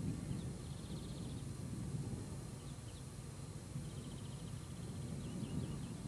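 A small bird chirping in rapid high trills, about a second in and again from about four seconds, over a steady low rumbling outdoor background.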